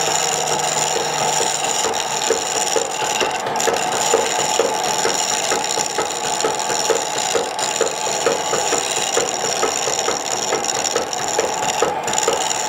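Turning chisel cutting a small spinning piece of wood held in a four-jaw chuck on a treadle lathe: a steady scraping hiss of tool on wood, with a regular ticking about four times a second from the turning lathe.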